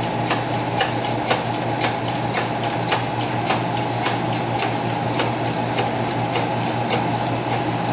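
A running machine gives a steady mechanical hum with a sharp, regular click about twice a second.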